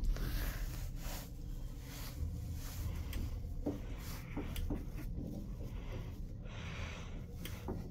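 A traction elevator car travelling down between floors, heard from inside the cab: a steady low rumble of the ride, with a few faint clicks in the middle and near the end.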